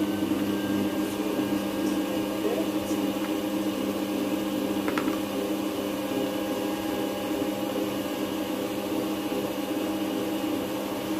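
Motor of a Thermomix-style food processor running at a steady speed, a constant hum, stirring the filling in its steel bowl. A light click about five seconds in.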